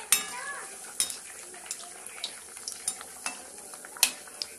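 A puri sizzling as it fries in hot oil in a steel kadhai, with a ladle clinking and scraping against the pan about once a second as it presses and turns the puri.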